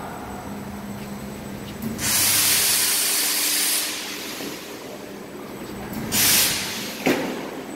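Hissing from machinery: a loud hiss lasting almost two seconds, then a shorter one about four seconds later, followed by a sharp click, over a faint steady machine hum.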